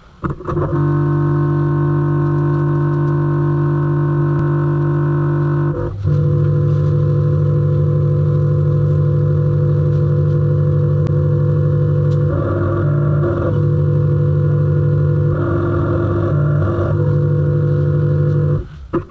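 Pressure washer running with a loud, steady buzzing hum that drops out for a moment about six seconds in and again just before the end, changing briefly twice in the middle as the spray is worked over the motorcycle.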